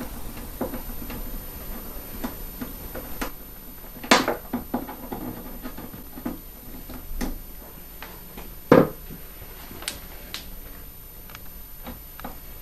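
Scattered small clicks and knocks of hands and tools working the fuel hose off the petcock of a KTM 125 SX's plastic fuel tank, with two louder knocks about four and nine seconds in.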